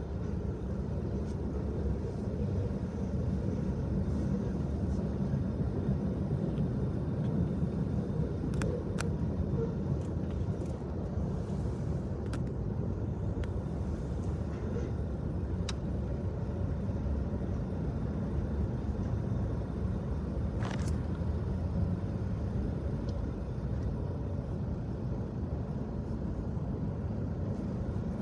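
Freight train passing at speed, heard from inside a car as a steady low rumble.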